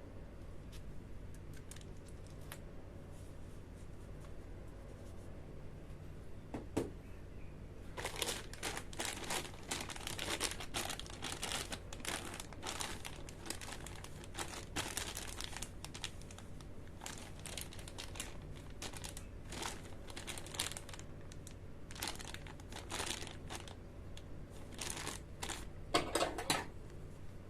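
Packaging crinkling and rustling in irregular bursts, starting about eight seconds in, loudest near the end, over a steady low hum.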